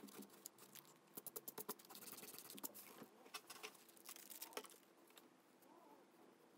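Faint, quick ticks and rubbing of fingers and a pencil on heavy watercolor paper: a run of small ticks in the first three seconds, then near silence.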